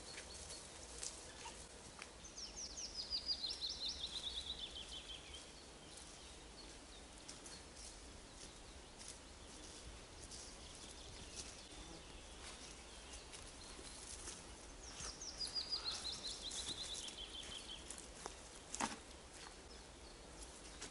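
A songbird singing twice, each song a rapid run of high notes falling steadily in pitch over about three seconds, the first a couple of seconds in and the second about twelve seconds later. Faint scattered ticks and rustles in between, and a sharper snap near the end.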